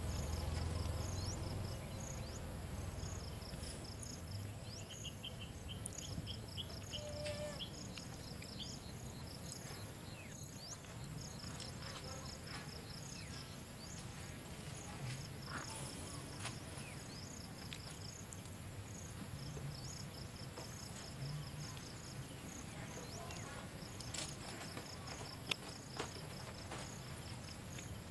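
Insects chirping: trains of rapid, high-pitched pulses that stop and start every few seconds, over a low outdoor rumble.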